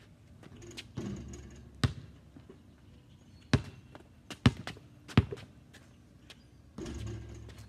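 Basketball bouncing on pavement, dribbled in several sharp single bounces spaced unevenly.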